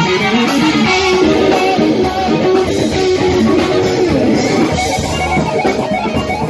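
A live band playing, with an electric guitar prominent over drums and keyboards, and a melodic line winding up and down.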